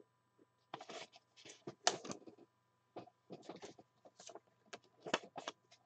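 Marker writing on a paper sticky note: a series of short, irregular scratchy strokes.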